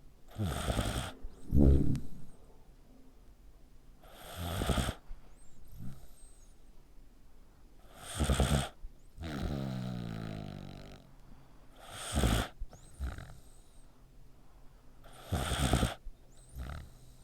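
A sleeping pet snoring loudly like a person, a rough snore every three to four seconds, several followed by a short second snort. About nine seconds in comes one longer, drawn-out breath with a wavering whistling tone.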